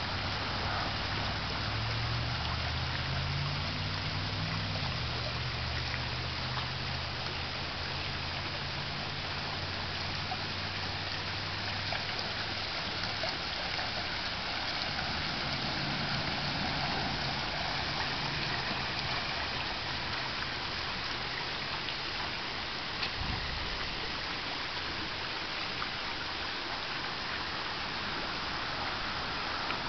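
Steady splashing and trickling of a garden pond's water feature, a ceramic urn fountain bubbling over and a small rock waterfall running into the pond. A low hum sits under the water for the first dozen seconds or so.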